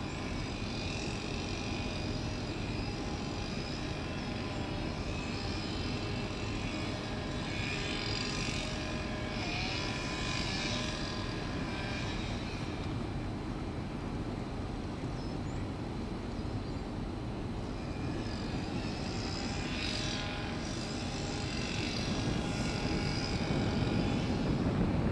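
Steady mechanical drone from the Stroud Brewery plant across the canal. Higher, wavering chirps come in about a third of the way through and again near the end.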